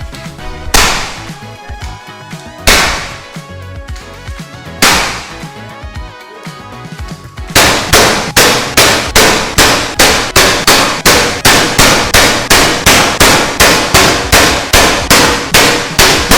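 Three loud gunshots about two seconds apart, each ringing out briefly, then a fast, even run of sharp hits, about two or three a second.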